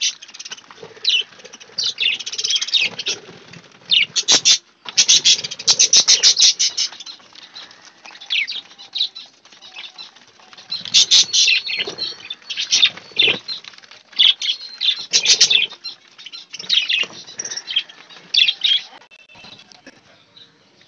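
Caged budgerigars and finches chirping and chattering in short high calls, with bouts of wings flapping and fluttering as they hop about the cage.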